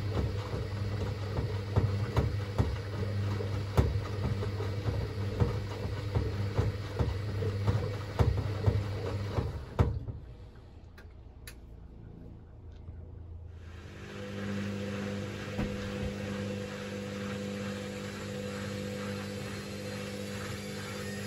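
Hoover VisionTech washing machine drum turning with a loud low hum and frequent sharp knocks and bangs as the machine jumps, a sign of suspension that is struggling to hold the drum. The motor stops about ten seconds in, and after a few quieter seconds a steady hum starts.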